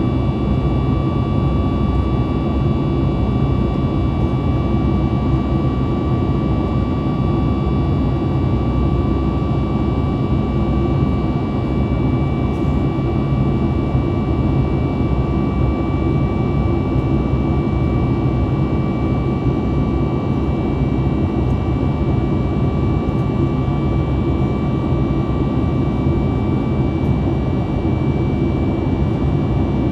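Steady cabin noise of a Boeing 737 MAX 8 in flight: a constant rush of engine and airflow noise with a thin steady whine over it, unchanging throughout.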